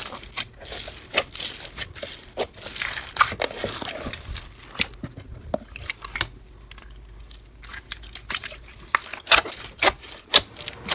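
Slime being squished and worked by hand, giving irregular crackling clicks and pops, quieter for a few seconds in the middle.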